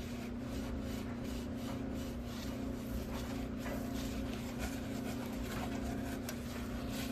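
Rubbing and wiping on an acrylic sheet to clear off adhesive residue with solvent: a light, scratchy sound with many small ticks, over a steady low hum.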